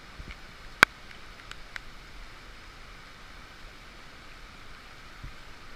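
Steady hiss of heavy rain and a stream, heard through a waterproof camera casing, with one sharp click about a second in and a few fainter ticks.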